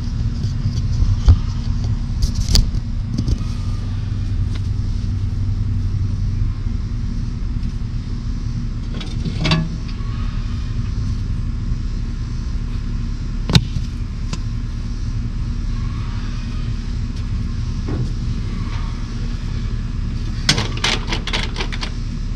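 Ford 8N tractor's four-cylinder flathead engine running steadily on a newly fitted replacement carburetor. A few sharp clicks and knocks sound over it, with a cluster near the end.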